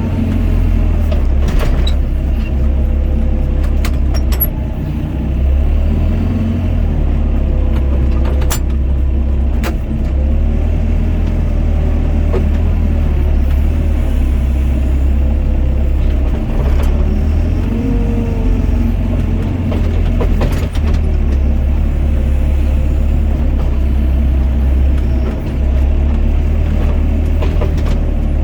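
Doosan DX55 mini excavator's diesel engine running steadily under load with a deep rumble, its pitch wavering slightly as the hydraulics work, with a few sharp knocks.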